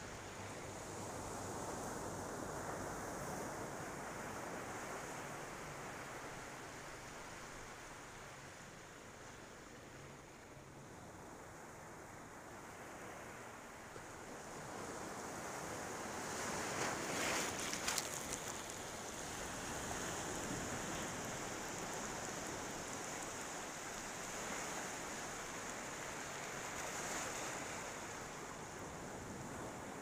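Ocean surf washing onto a beach, rising and easing in slow swells, with a louder wave breaking a little past halfway through.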